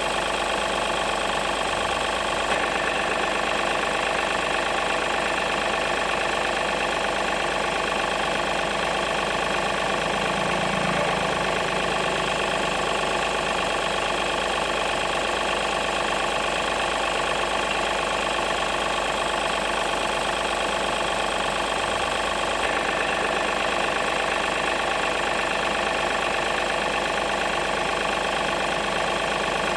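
Steady engine idling sound that holds the same pitch throughout, with no revving.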